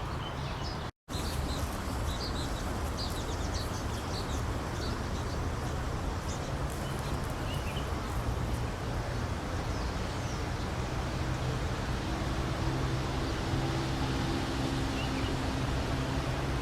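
Small birds chirping in short high notes, most often in the first half, over a steady rushing background with a low hum. The sound drops out completely for a moment about a second in.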